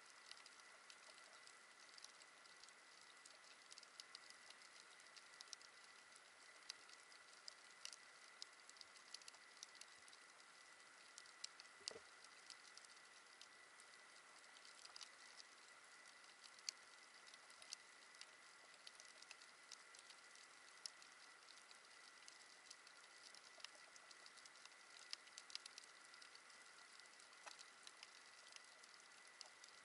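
Faint underwater coral-reef crackle: a dense scatter of small sharp clicks over a steady faint high hum, with one duller knock about halfway through.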